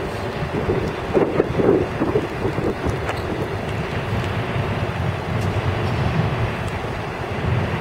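Diesel engine of a Scania fire engine running at idle, under wind buffeting the microphone, with gusts swelling about a second in.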